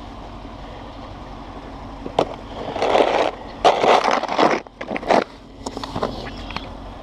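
Snow being cleared by hand: three loud rough scraping strokes from about two and a half seconds in, then a few lighter ones, over a steady low hum.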